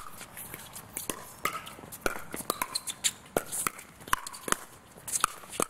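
Pickleball paddles hitting a hard plastic ball in a fast doubles rally at the net: a rapid, irregular run of sharp pops.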